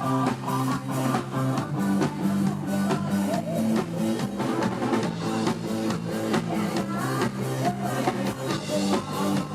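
Live band playing an instrumental passage: a steady drum-kit beat over bass and electric guitar.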